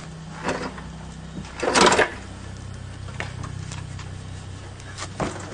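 Clunks and a louder scrape, about two seconds in, from a 1964 Corvette body being pushed and pulled by hand while it hangs from a lifting rig, over a steady low hum.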